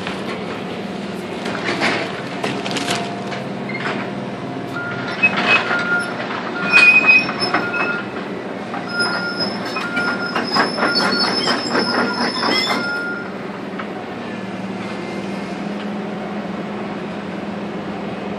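CAT excavator with a demolition grab tearing down a building: its engine runs steadily while debris clatters and crashes. High squeals come over and over from about five to thirteen seconds in.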